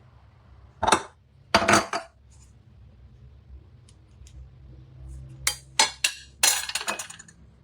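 A spoon and kitchenware clinking and clattering, likely while a tablespoon of shio koji is measured out and added to the pot. The sounds come in two bunches of short knocks and rattles, about a second in and again from about five and a half seconds.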